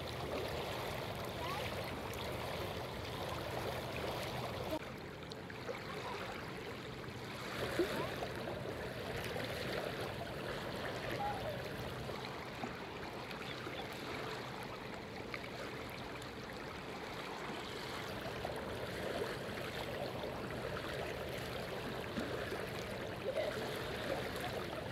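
Small waves lapping and trickling against a pebbly shoreline, a steady wash of water.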